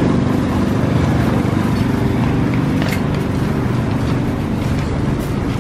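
An engine running steadily close by, a low, even hum, with a light click about three seconds in.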